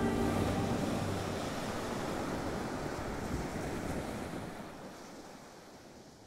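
Sea waves washing, an even rushing noise that fades away over the last two seconds or so.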